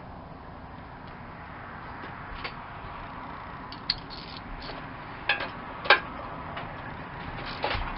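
A few sharp metallic clinks of a wrench and bolt hardware against steel as a winch mount is bolted to a Jeep's front bumper, the loudest about six seconds in, over a steady hiss of wind.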